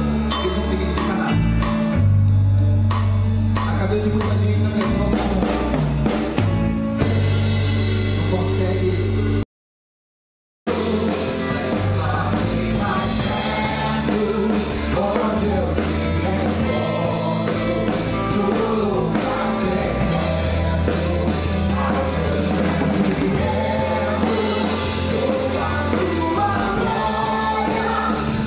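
A live worship band playing: drum kit with cymbals, bass, guitar and keyboard, with voices singing. About a third of the way in, the music cuts to silence for about a second, then starts again at full level.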